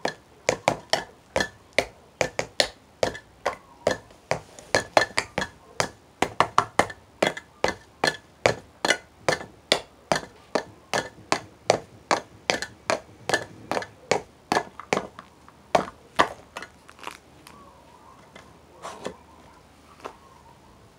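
Drum being struck with sticks in a fast, uneven run of hits, about three to four a second, some with a short ringing ring to them. The hits thin out to a few scattered strikes after about seventeen seconds.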